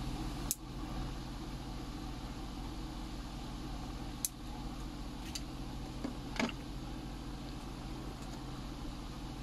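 Steady low hum in the background, broken by a few short sharp clicks, with a slightly longer knock about six seconds in.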